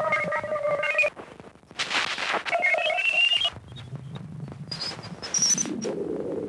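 Strange electronic radio noise, which the uploader presents as radio emissions from Ganymede: steady beeping tones with overtones that stop about a second in, then a burst of hiss and chirping whistle tones that step upward in pitch, twice, the second run higher, over a low rumbling static.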